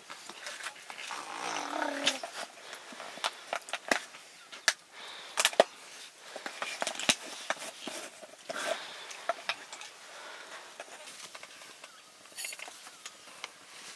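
Kernels popping and crackling as they roast in a hot pan: many sharp, irregular pops.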